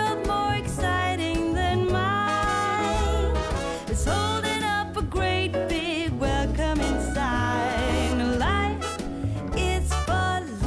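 Background music: an upbeat, jazzy pop song with a wavering melody line over bass and a steady beat.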